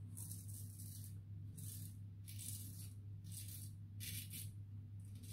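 Razorine Flatboy double-edge safety razor with a Kai blade scraping through lathered whiskers under the nose, a run of short, faint, scratchy strokes about every half second.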